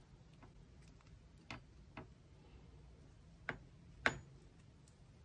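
Metal double-pointed knitting needles clicking against each other a few times while stitches are knitted together, faint at first with two sharper clicks in the second half.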